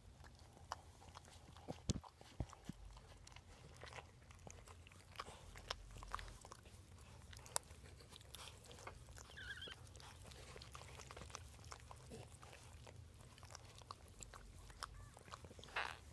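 Dachshund licking and nibbling a newborn puppy clean: faint wet smacks and clicks, scattered and irregular.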